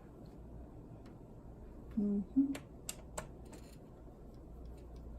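A few light, sharp clicks and taps of small parts and a screwdriver on a laptop's plastic case, with a brief hummed vocal sound about two seconds in.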